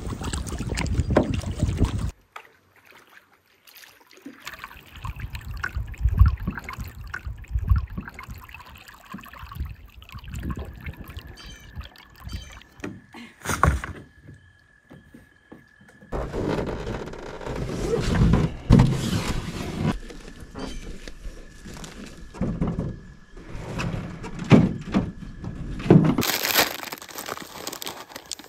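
Canoe paddling with wind on the microphone, then, after a cut, water and gear being handled on a wooden dock with scattered knocks and rustles. Near the end, a plastic snack bag crinkling.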